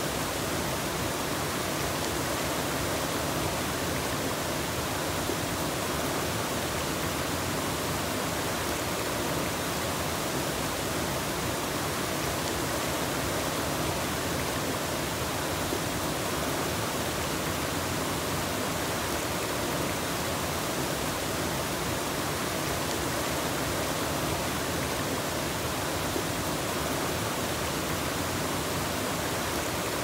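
Water pouring over a small two-tiered waterfall into a river pool, a steady even rush of falling water.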